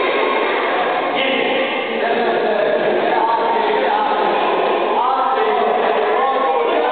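Crowd of spectators and players shouting and cheering at once, many high voices calling over one another.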